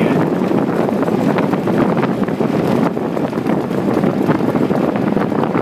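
Blizzard wind blowing hard across the microphone: a loud, steady, low rushing noise with constant buffeting.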